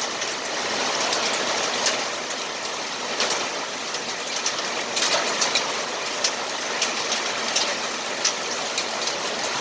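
Pea-sized hail and rain falling steadily, with many sharp, irregular pings and clicks of hailstones striking hard surfaces over the hiss of the downpour.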